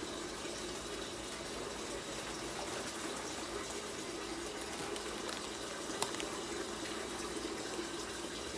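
Kitchen sink tap running steadily, with a single sharp click about six seconds in.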